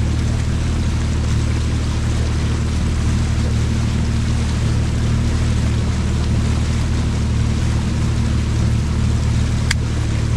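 Outboard motor on a small boat running steadily under way, with a steady rushing hiss over it. A single short click near the end.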